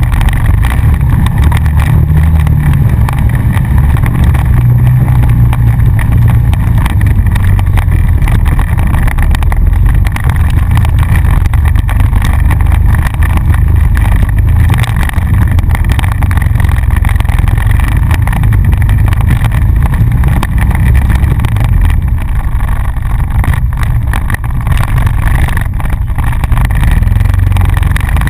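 Honda Rancher ATV engine running loud and close as the quad is ridden, a steady low drone without pauses.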